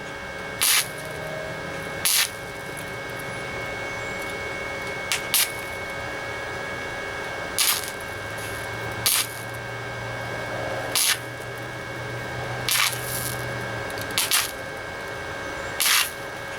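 Titanium Easy Flux 125 flux-core welder laying short tack welds on a sheet-metal patch: about ten brief bursts of arc, a second or two apart, over a steady high hum.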